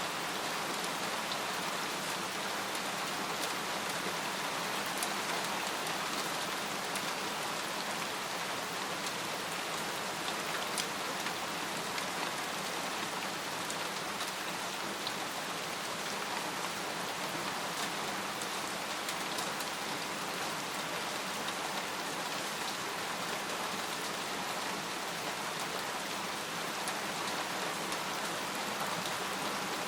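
Steady rain falling on a tent, with single drops ticking sharply now and then.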